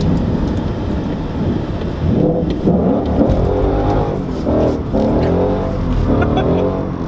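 Engine and road noise inside the cabin of an S550 Ford Mustang being driven. The engine note rises and falls repeatedly from about two seconds in.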